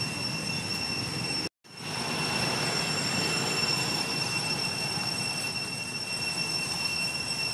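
Steady, high-pitched insect drone over a constant hiss of forest ambience. It cuts out for a moment about one and a half seconds in.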